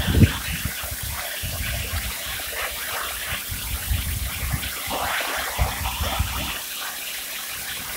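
Small pressure washer's jet spraying water onto woven olive-press filter mats: a steady hiss and splash of water on the mesh, washing out residue loosened by a hot potassium-hydroxide soak.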